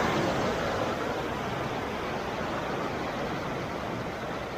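Small sea waves washing over shoreline rocks, the hiss of the wash slowly dying down.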